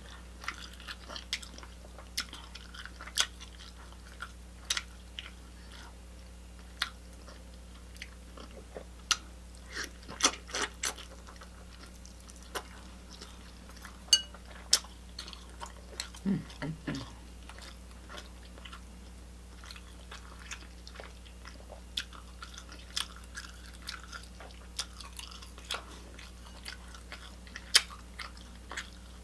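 Close-miked eating of seafood: chewing and smacking, with scattered sharp clicks and cracks from the shells.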